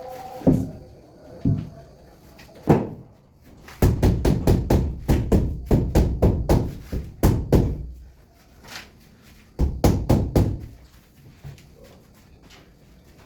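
Repeated hard knocks and taps on a solid surface: a few single strikes, then a quick run of about three a second for several seconds, and a shorter run near the end.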